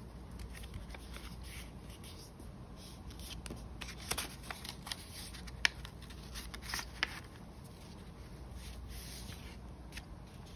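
A sheet of paper being folded and creased by hand: soft rustling and rubbing with a few sharp crackles, the sharpest about five and a half seconds in.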